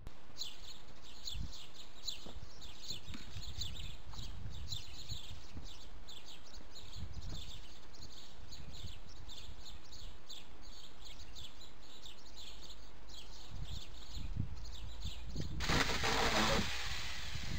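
Small birds chirping over and over, several chirps a second, above a low rumble. Near the end a loud rushing noise lasts about a second and a half.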